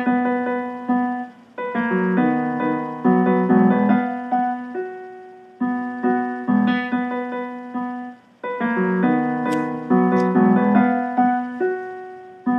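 Software grand piano playing chords and notes from a MIDI track that was converted automatically from a song's audio; it sounds close to the original, with some notes off. The phrases start again every few seconds.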